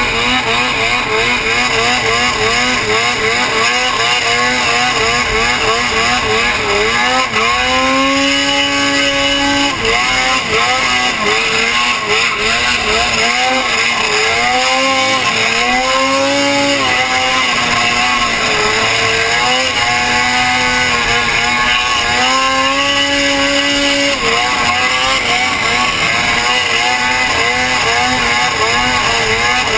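Ski-Doo snowmobile engine running hard as the sled skims across water in tight circles. Its pitch wobbles quickly up and down for the first several seconds, then settles into longer held notes that rise and fall with the throttle.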